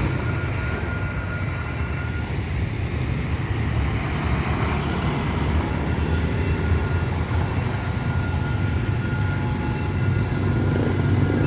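Street traffic: motorbikes, scooters and cars passing, making a steady engine rumble.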